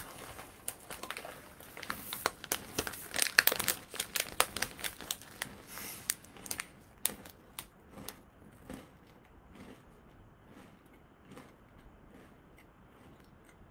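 Crinkling snack packet being handled and rummaged: dense crackling for about six seconds, loudest in the middle, then a few scattered crackles that die away.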